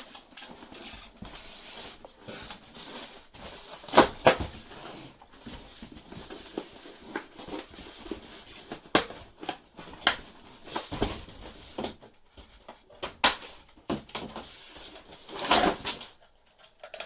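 Styrofoam packing being pulled out and handled: irregular squeaks, crackles and knocks, with the loudest burst near the end.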